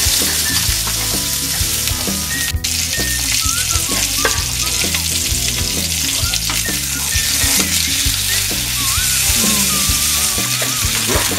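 Salmon steaks sizzling steadily as they fry in hot mustard oil in a non-stick pan, browning and crisping.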